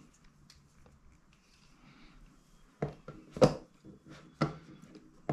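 A handful of short, sharp clicks and knocks from a spinning reel being handled and set down on its cardboard box. They begin almost three seconds in, with the loudest knock about half a second later.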